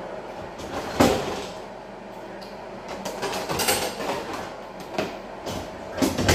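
Scattered knocks and clatter of kitchen items being handled and moved, the sharpest knock about a second in and a few more near the end.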